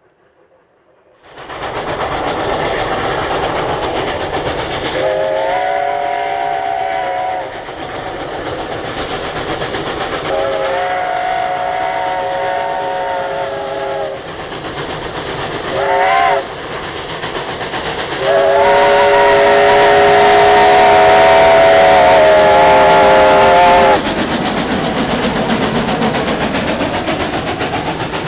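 Southern Pacific 18, a narrow-gauge 4-6-0 steam locomotive, working hard past with steam hissing, blowing its chime whistle four times: long, long, short, long, the grade-crossing signal. The last blast is the longest and loudest, and then the coaches roll past on the rails.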